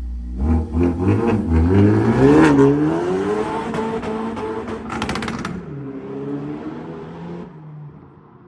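Vauxhall Astra J VXR's turbocharged 2.0-litre four-cylinder engine revving. A few short blips climb into a long rise in pitch, then it falls back, with a quick burst of exhaust crackles about five seconds in. It then settles low and fades near the end.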